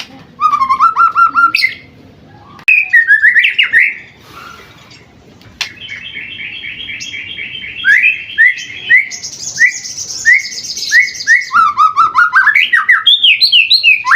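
Young white-rumped shama singing a long, varied song: fast runs of repeated notes, strings of chirps and a high, rapid trill in the middle, with rising and falling notes toward the end.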